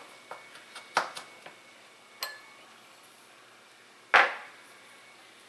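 A few light clicks and knocks of a metal fork against a small mixing bowl as dry rub spices are stirred together. One clink about two seconds in rings briefly, and the loudest knock comes about four seconds in.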